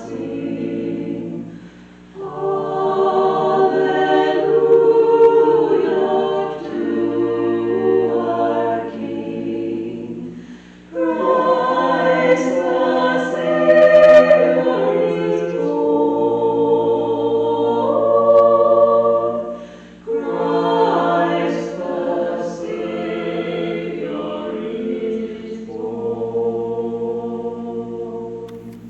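Choir singing a hymn in long, held phrases, with brief pauses between phrases about every nine seconds.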